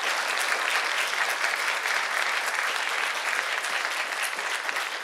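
Congregation applauding steadily, a dense crackle of many hands clapping.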